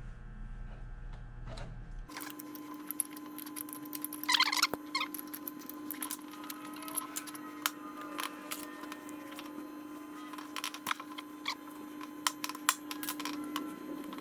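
Small metal lathe parts clicking and clinking as they are worked loose and taken apart, with a brief scrape about four seconds in. A steady hum runs underneath, and the background changes abruptly about two seconds in.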